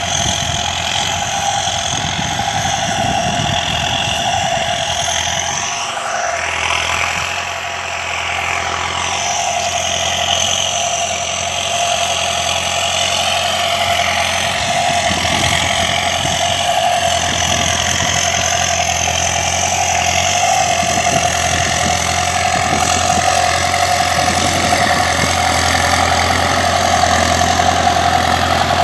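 New Holland 6610 tractor's four-cylinder diesel engine running steadily under load, pulling a two-disc plough through heavy clay soil. It grows louder over the second half as the tractor draws near.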